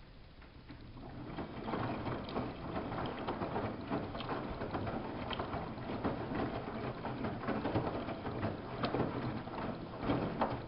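Samsung WF71284 front-loading washing machine's drum turning the laundry through the wash water, with splashing and clatter. It builds up about a second in and stops near the end, as the drum turns one way and then pauses.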